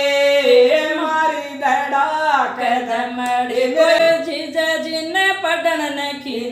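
Two women singing a Rajasthani folk song (a jija geet) unaccompanied, in long held notes that slide from pitch to pitch.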